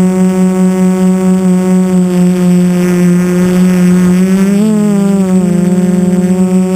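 QAV500 quadcopter's electric motors and propellers humming steadily, close up from the onboard camera. About four and a half seconds in, the pitch briefly rises and then wavers with a fast flutter before settling back.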